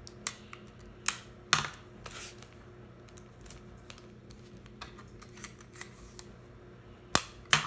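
Hands working clear adhesive tape and folded origami paper: scattered sharp clicks and rustles, a short rasping noise about one and a half seconds in, and two loud snaps near the end.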